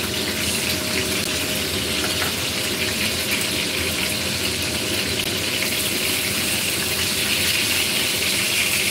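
Oil sizzling steadily as eggplant slices topped with minced fish shallow-fry in a pan.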